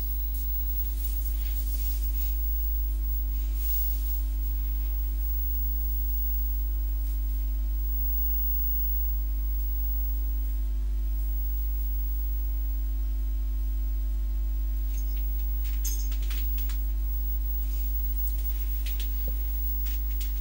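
Steady low electrical hum with a faint buzzing tone, unchanging throughout, with a few faint ticks.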